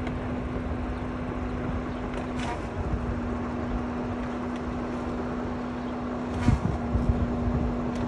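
Shallow river water rippling and flowing, with wind buffeting the microphone and a steady low hum underneath. There is a short sharp tick about two and a half seconds in and a louder wind bump about six and a half seconds in.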